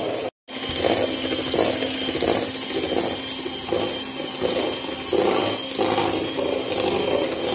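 Electric hand mixer running, its beaters churning brownie batter in a steel bowl: a steady motor hum and whine that swells and eases as the beaters move through the mix. It cuts out for a moment just after the start.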